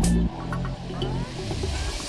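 Electronic dance music in a breakdown: the kick drum drops out a moment in, leaving sustained bass notes under a hissing swell that builds toward the end.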